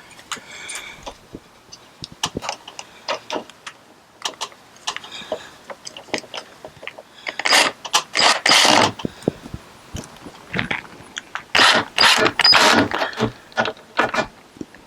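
A handheld 1/4-inch cordless driver driving a screw home in two short bursts, about halfway through and again near the end, with rattling, ratchet-like clatter. Before the bursts come light clicks and taps of parts being handled.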